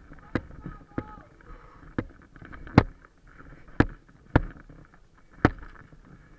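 About seven sharp knocks or clanks at irregular intervals, roughly one a second, with faint voices near the start.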